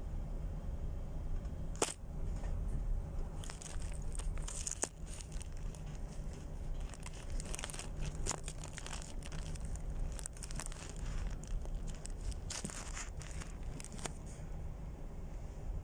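Noise aboard a tanker in rough seas: a steady low rumble with a low hum under it, and irregular crackling and rustling on the microphone from about two seconds in, dying away near the end.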